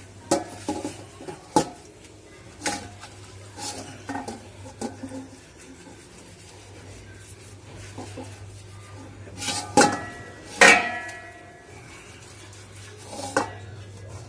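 Metal air-compressor parts clinking and clanking against one another and a metal tray as they are handled and cleaned. The knocks are irregular, some ring briefly, and the loudest pair comes about ten seconds in.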